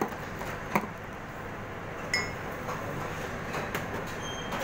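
A few light clinks and knocks of metalware and crockery at an espresso counter, with a ringing clink about two seconds in, over steady busy-kitchen background noise.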